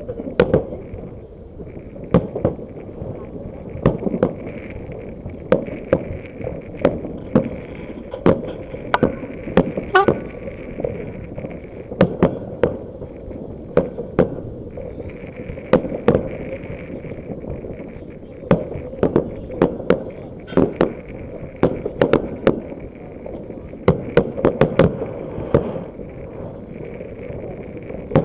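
Fireworks display: aerial shells bursting overhead in an irregular run of sharp bangs and cracks, at times several within a second.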